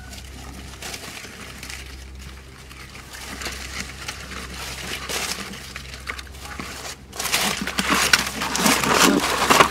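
Dense, irregular clicking and crackling, like small hard objects knocking together, growing much louder about seven seconds in.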